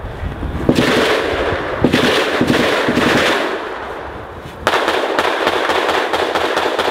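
Automatic gunfire: a dense run of shots for the first few seconds that dies down, then a long, rapid burst of evenly spaced shots starting a little after halfway through.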